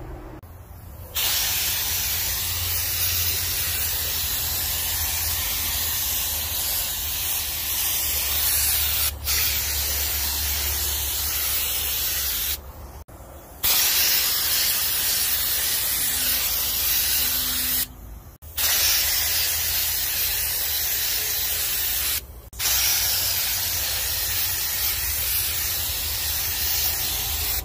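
Air spray gun with a metal cup below it spraying a coat of finish onto carved wood: a steady hiss of air and atomised finish that starts about a second in and breaks off briefly four times. A steady low hum runs underneath.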